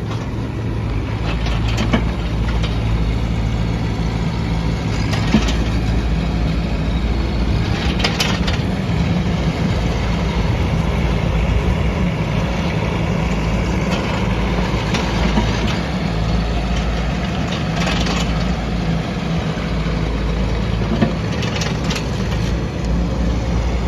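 A Doosan DX10Z micro excavator's small diesel engine running steadily, with a few sharp knocks and clanks from time to time.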